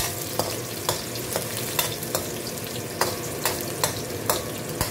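Chopped onion and garlic sizzling in hot oil in a stainless steel wok while being stirred. A spatula scrapes and taps against the metal about twice a second, over a steady sizzle.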